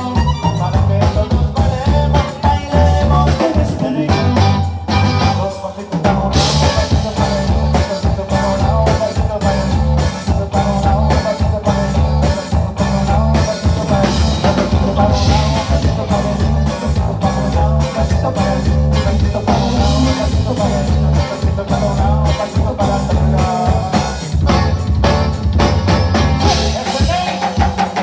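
Live conjunto band playing: button accordion with acoustic guitar, electric bass and drum kit on a steady beat. The bass and drums drop out briefly around five seconds in, then the full band comes back in.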